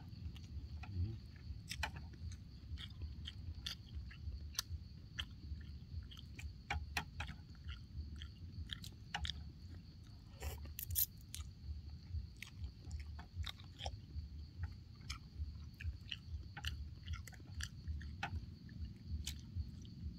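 A person eating kuy teav (Khmer rice noodle soup) up close: wet chewing and slurping of noodles, heard as many short smacks and clicks in an irregular run.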